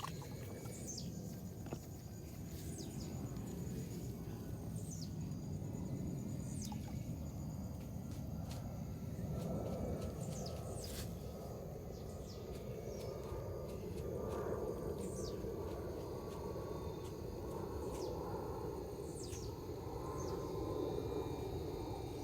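Outdoor night-time ambience: steady high insect trilling, with short high-pitched calls falling in pitch every second or two over a low steady rumble.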